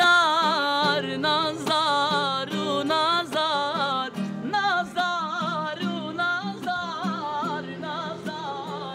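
Male voice singing a wavering, heavily ornamented melody to a strummed acoustic guitar, fading out toward the end.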